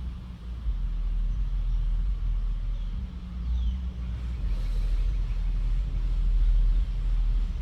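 Steady low rumble that wavers in loudness, with a short high falling chirp about three and a half seconds in.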